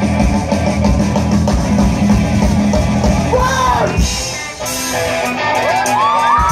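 Live rock band playing loud, with drum kit, bass and electric guitars. About four seconds in, the drums and bass drop out, leaving held notes, and the audience starts cheering and whooping near the end.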